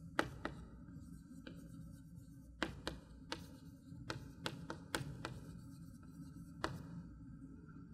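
Chalk writing on a greenboard: a series of short sharp taps and light scratches as letters are formed, most of them in the middle of the stretch.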